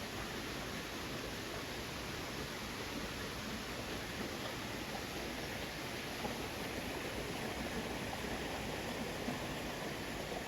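Waterfall's rushing water, a steady unbroken noise.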